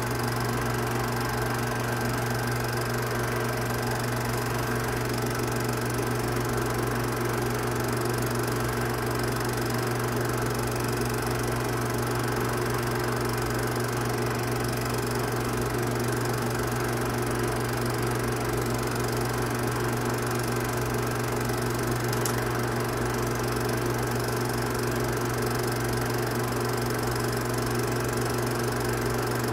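Film projector running: a steady mechanical hum and whir from its motor and film mechanism, with an even hiss over it.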